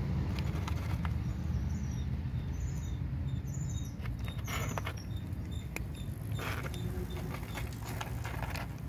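Cats chewing dry kibble at close range: irregular crisp crunches, thickest in the second half, over a low steady rumble.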